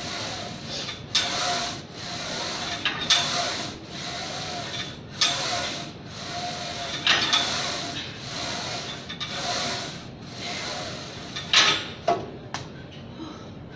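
Glute kickback machine worked through repetitions: a rasping rub with each push and return, repeating about once a second. A few sharp clanks come near the end as the set finishes.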